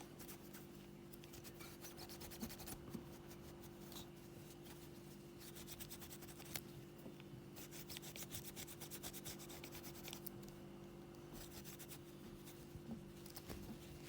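Polishing cloth rubbing over a metal sonic screwdriver prop, buffing it with Cape Cod polish in quick, faint back-and-forth strokes that come in runs with short pauses. A steady low hum runs underneath.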